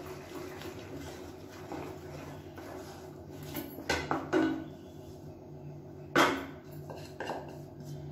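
A wooden-handled stirrer scraping and knocking against a steel kadai while rice flour is stirred into thick jaggery syrup for athirasam dough, with a few sharp clinks, the loudest about six seconds in.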